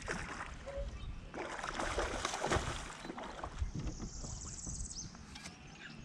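A hooked bowfin (mudfish) thrashing and splashing at the surface while being played on the rod, with uneven bursts of water splashing. About four seconds in, a brief high, fast rattling buzz.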